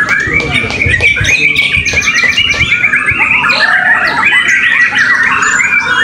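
Several caged white-rumped shamas singing at once: a dense tangle of rapid whistled phrases and chirps, with one fast, even trill running for about two seconds starting around a second in.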